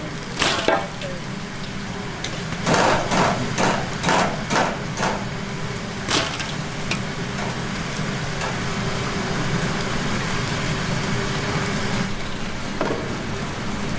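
Crisp fried chicken pieces clattering in a stainless steel bowl in quick rhythmic bursts, about two a second, then a steadier rustle as the chicken is tipped out into a pot, over a constant low hum.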